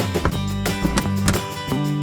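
Background music: plucked acoustic guitar with a steady rhythm.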